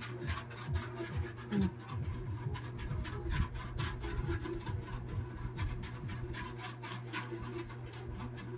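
Clear plastic wrapping crinkling and rustling in irregular bursts as a plastic-wrapped solar flood light is handled, over a steady low hum.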